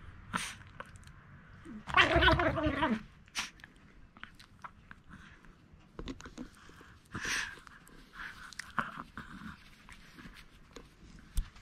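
Chihuahua chewing and crunching on a snack, with scattered small clicks and mouth noises. About two seconds in, a loud pitched vocal sound lasts about a second.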